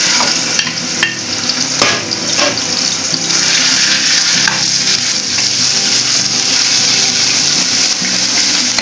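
Ground meat sizzling as it fries in hot oil in a frying pan, a steady hiss, while it is stirred with a wooden spoon. A few knocks of the spoon come in the first couple of seconds.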